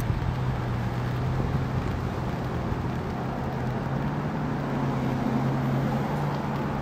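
An engine running steadily at low speed, a constant low hum over background noise, with a second, higher tone joining about halfway through for a couple of seconds.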